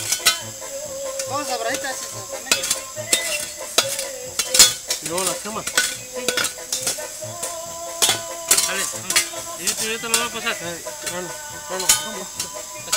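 Food sizzling in a metal pan set on hot coals, with repeated sharp clicks and scrapes of a utensil against the pan as it is stirred.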